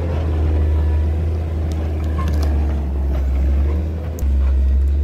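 Motor grader's diesel engine running steadily, a deep drone, with a few light clicks over it; about four seconds in the engine note suddenly gets louder and deeper.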